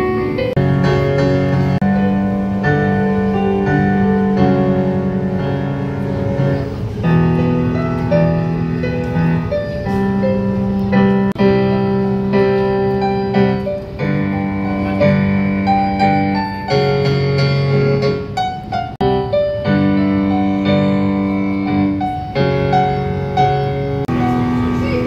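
A red Casio digital keyboard, on a piano sound, played by a young child: a tune of melody notes over held chords that change every second or so.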